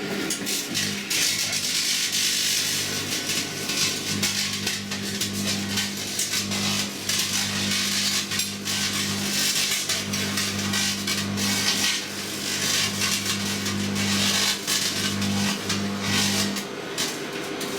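Modified twin-magnetron microwave oven running: a loud transformer hum that drops out briefly a few times, under a constant crackling hiss from metal titanium turnings arcing inside.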